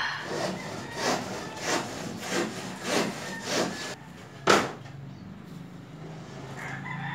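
Rhythmic rasping strokes, about seven in four seconds, like a blade drawn back and forth through something woody. They are followed about four and a half seconds in by one sharp knock.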